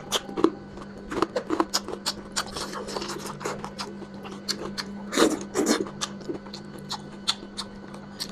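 Close-up eating sounds: lips smacking and chewing on spicy lamb head meat, a rapid, irregular run of wet clicks with a couple of louder bites, about two and five seconds in.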